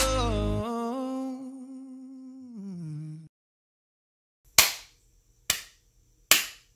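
Background music ends on held notes that slide down in pitch and stop about three seconds in. After a short silence, a person claps their hands three times, slowly, a little under a second apart.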